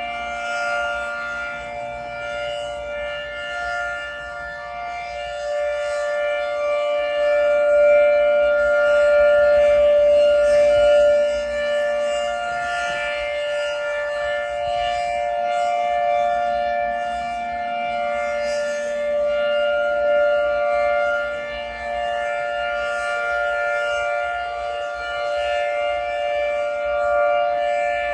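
Federal 2T22 dual-tone rotating air raid siren sounding at full speed, holding a steady two-note chord. Its loudness swells and fades slowly as the rotating head sweeps past.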